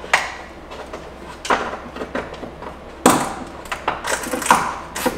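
A handful of sharp knocks and clatters of hard plastic car parts being handled, the loudest about three seconds in.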